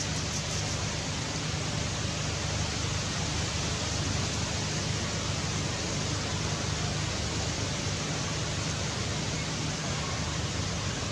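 Steady, even hiss with a low hum underneath, unchanging throughout; no animal calls stand out.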